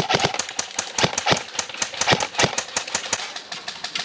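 Airsoft guns firing, a rapid, irregular string of sharp cracking shots, several a second, that thins out in the last second.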